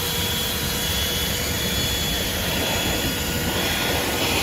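THISWORX 12V corded handheld car vacuum running steadily, its motor giving a constant whine over rushing air, while it sucks sand off the car's floor.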